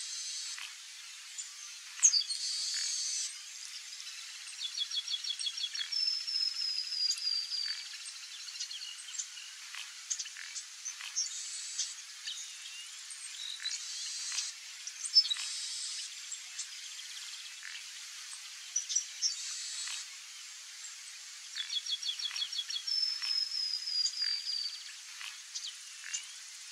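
Chestnut-capped blackbird singing twice: a quick run of repeated short notes followed by a long falling whistle. Short harsh calls and scattered clicks fill the gaps between the two songs.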